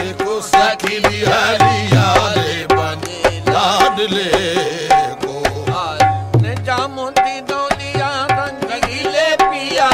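Qawwali music: tabla strokes in a brisk, steady rhythm under sustained harmonium notes, with a voice singing wavering melismatic runs.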